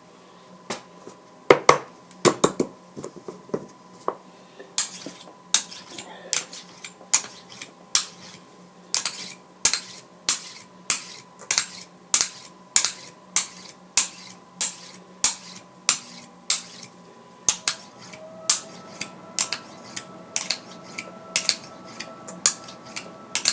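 A magnet repeatedly clicking and clinking against a steel tool as it is stroked along it to magnetize it, about one and a half sharp metallic clicks a second.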